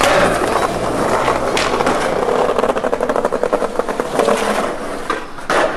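Skateboard landing and rolling over brick pavers, its hard wheels clattering in rapid clicks over the joints between the bricks, with a sharp clack early on and a short loud scrape of noise near the end.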